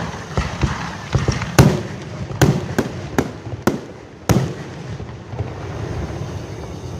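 Aerial fireworks shells bursting: a rapid run of about six sharp bangs from about a second and a half in to past four seconds, then a lower rumble and crackle that fades.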